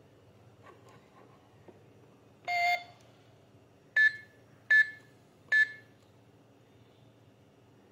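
Keypad of a toy electronic fingerprint money safe beeping as its buttons are pressed: one longer, buzzier tone about two and a half seconds in, then three short beeps of one pitch a little under a second apart.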